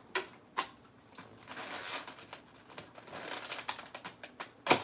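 Salad lettuce and croutons rustling inside a lidded plastic container being shaken, in two short spells, with sharp clicks of the plastic and a louder knock near the end.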